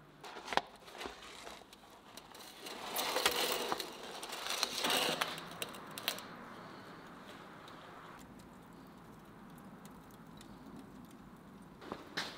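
Metal baking pan scraping and knocking on the stone floor of a wood-fired brick oven as it is drawn out, in two scraping runs about three and five seconds in. A few sharp clicks before, and a faint crackle of the embers after.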